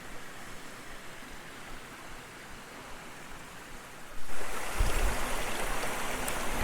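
Steady rushing water of a stream, suddenly louder about four seconds in.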